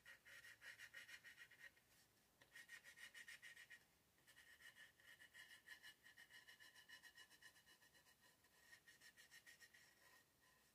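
Acrylic paint marker's tip rubbing and scratching across a canvas in quick short strokes, faint, with a thin squeak. The strokes come in several runs broken by brief pauses.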